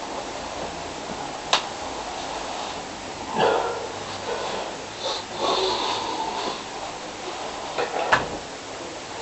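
Snoring: a short loud snore about a third of the way in, then a longer noisy breath from about the middle, with a few sharp clicks near the start and near the end.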